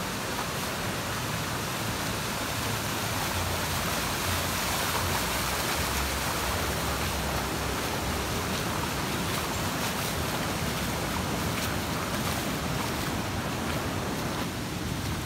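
Floodwater rushing across a road and through yards in a steady, unbroken hiss.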